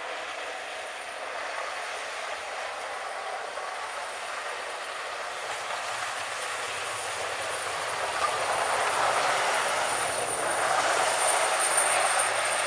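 A motor vehicle working in heavy wet snow: a steady rushing noise that slowly grows louder, with a thin high whine and a low hum coming in over the second half.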